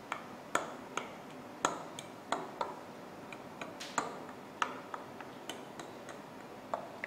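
A metal fork pricking pie-crust dough in a glass pie dish, the tines ticking against the glass with a run of sharp, uneven taps, about two a second.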